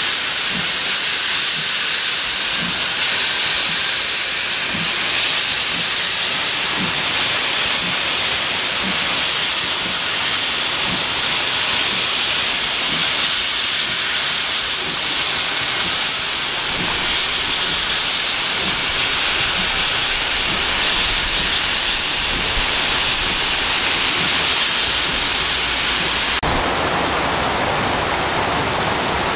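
Steam hissing loudly and steadily from a Great Western-style 4-6-0 steam locomotive as it draws slowly away with its cylinder drain cocks open, with faint low beats about once a second. Near the end the hiss gives way abruptly to the steady rush of a stream.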